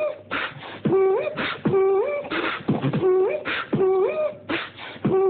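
Human beatboxing: a looping beat of mouth-made kick and snare sounds interleaved with a hummed vocal note that slides upward, the pattern repeating about once a second.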